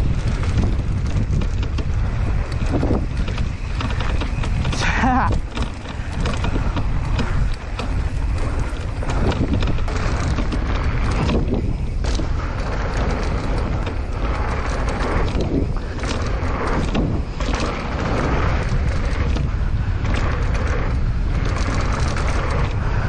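Wind buffeting the microphone of a mountain bike rider's camera on a descent, over steady tyre and trail noise, with many short clicks and rattles from the bike.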